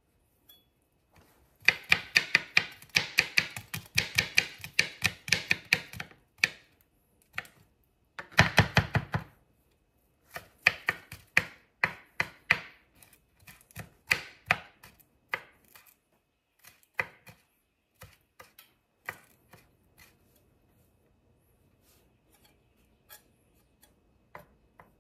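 Kitchen knife chopping peeled garlic cloves on a cutting board: quick runs of sharp knocks at about five or six a second, broken by short pauses, thinning to a few scattered taps in the last third.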